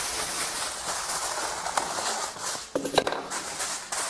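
Aluminium foil crinkling and rustling as it is pressed and folded into a baking tray, with a sharp click about three seconds in.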